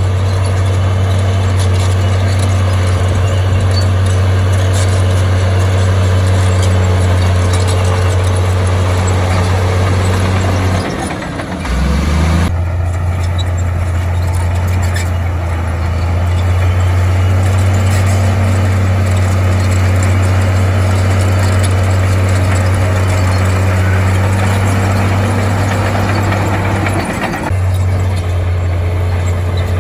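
Heavy diesel engine of earthmoving machinery running steadily with a deep hum, dipping briefly about eleven seconds in and changing abruptly twice.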